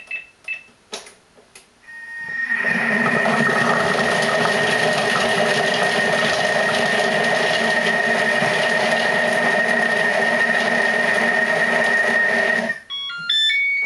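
Thermomix TM31 chopping carrots and potatoes at speed 4 for 10 seconds: the motor and blade start about two seconds in, run with a steady high tone over the churning of the vegetable pieces, and stop abruptly, followed by a few short beeps at different pitches.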